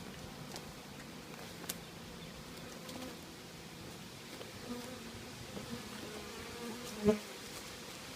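A swarm of honey bees buzzing in a steady hum around a hive as they are installed from their package. A brief louder sound comes about seven seconds in.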